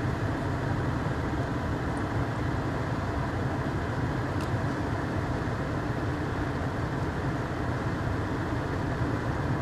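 Steady mechanical rumble, even and unchanging, with a faint click about four and a half seconds in.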